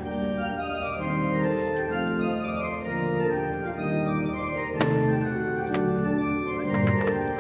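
Slow music of held chords moving from one to the next, with a sharp bang from a firework burst about five seconds in and a few more cracks near the end.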